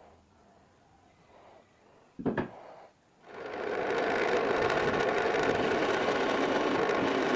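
A single sharp knock, then about a second later a power tool's motor starts, builds up over about a second and runs steadily and loudly.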